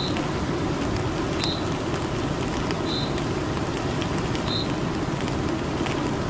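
Steady rain falling, an even hiss with faint scattered pattering drops. A short high chirp repeats about every second and a half.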